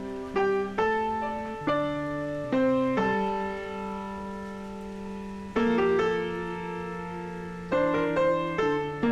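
Background piano music: notes and chords struck at an unhurried pace, each left to ring and fade.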